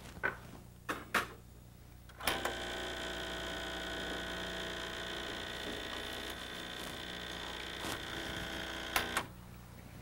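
A Starbucks Barista home espresso machine's vibratory pump runs steadily for about seven seconds, pushing hot water through the portafilter to warm it. The pump starts about two seconds in and stops near the end, and a few light knocks come before it starts.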